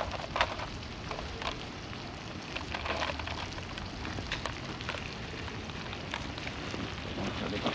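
Meat and vegetables sizzling in a pan over an open wood fire: a steady hiss with scattered crackles and pops.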